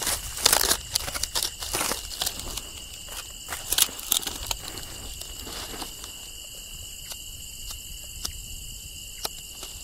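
Dry grass and twigs rustling and crackling as they are pulled and gathered by hand, busiest over the first half and thinning to a few scattered snaps. Crickets chirr steadily behind it at a high, unbroken pitch.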